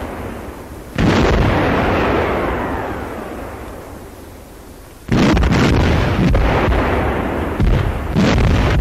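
Heavy artillery gun firing: a loud blast about a second in, another about five seconds in and more near the end, each followed by a long rolling echo that slowly dies away.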